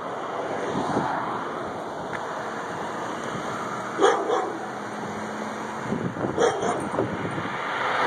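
A dog barking in short bursts, a few times about four seconds in and again after six seconds, over steady outdoor street noise.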